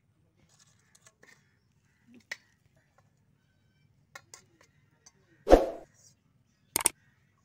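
Faint clinks of a spoon against a steel plate as chutney is served, then the sound effects of a subscribe-button animation: a loud short thump about five and a half seconds in and a sharp double mouse-click near the end.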